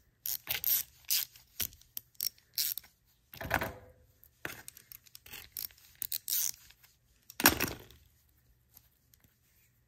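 Small wrench turning a grease zerk fitting in a sway bar link's bushing housing: a run of short metallic clicks and scrapes, with two louder scrapes about three and a half and seven and a half seconds in, stopping about eight seconds in.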